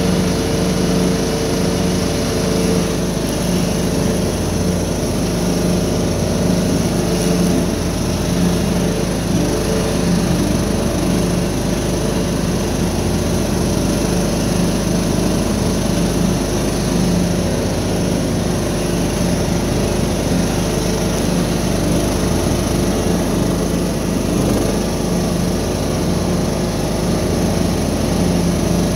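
Riding lawn mower's engine running steadily under load as it cuts through tall, overgrown grass, heard from the driver's seat.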